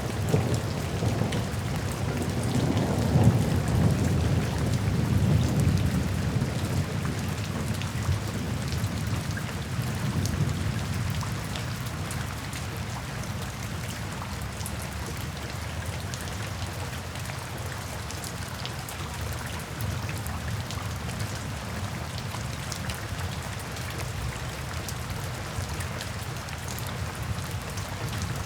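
Steady heavy rain falling, with a low rolling rumble of thunder in the first several seconds that fades away, leaving only the rain.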